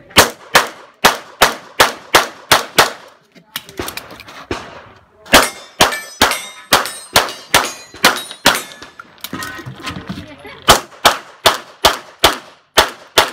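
Semi-automatic pistol fired in rapid strings, a shot roughly every 0.3 to 0.4 seconds, in three bursts with short pauses a few seconds in and again about nine seconds in as the shooter moves to new positions.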